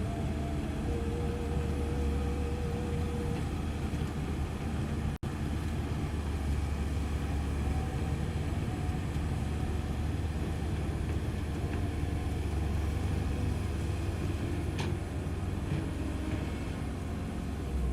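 Diesel engine of a Komatsu PC130F hydraulic excavator running steadily at working speed, with a brief break in the sound about five seconds in.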